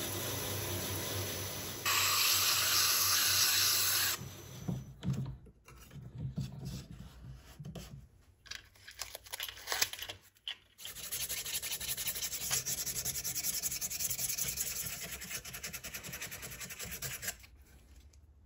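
A belt grinder is running, and its sound turns to a loud grinding hiss for about two seconds as the wooden knife handle is pressed against the belt. After a few seconds of irregular handling noises while sandpaper is taken down, the wooden handle is rubbed by hand with sandpaper for about six seconds.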